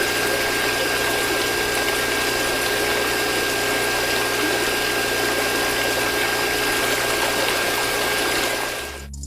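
Small DC-motor mini water pump running steadily with a constant motor whine over the rush and splash of water, cutting off near the end.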